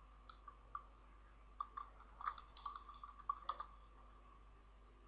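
Faint computer keyboard keystrokes, about a dozen scattered clicks, as a login password is typed and entered.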